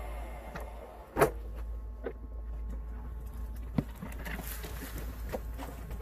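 Two sharp knocks, one about a second in and one near four seconds, with scattered light taps over a low steady hum.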